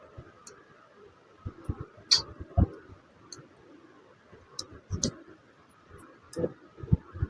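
Scattered small clicks and a few soft low thumps a second or two apart: handling noise, with no speech.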